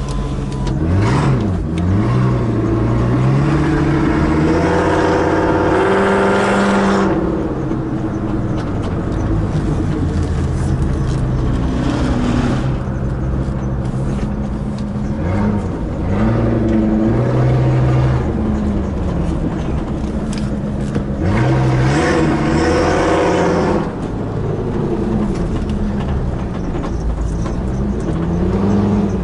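Ford Excursion's 6.8-litre V10 gasoline engine heard from inside the cab while driving, its note rising under acceleration. The pitch drops suddenly about seven seconds in and again near the end as the transmission shifts up.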